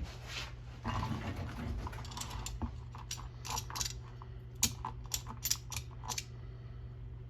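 Irregular light clicks and knocks of tools and parts being handled on a workbench, thickest in the middle of the stretch, over a steady low hum.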